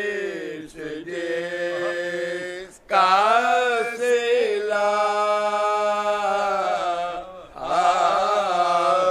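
Unaccompanied men's voices chanting an Urdu lament for Husain: a lead singer carries long, wavering melodic lines while companions hold a steady low drone note beneath him. There are short breaks between lines, about three seconds in and again near seven and a half seconds.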